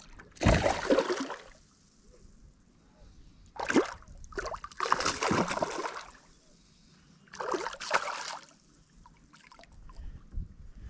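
A hooked peacock bass thrashing and splashing at the water surface beside a kayak as it is reeled in, in four separate bursts of splashing over several seconds.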